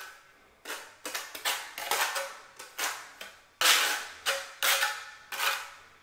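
Trowel scraping thinset mortar across the back of a floor tile in quick repeated strokes, about two or three a second: the tile is being back-buttered.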